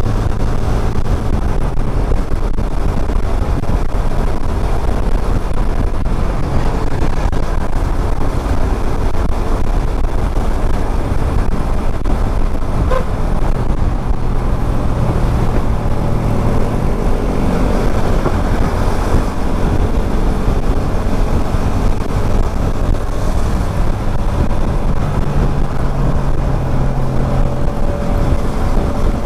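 Motorcycle riding at road speed in traffic: a steady rumble of wind on the camera microphone over the engine running, with other vehicles passing.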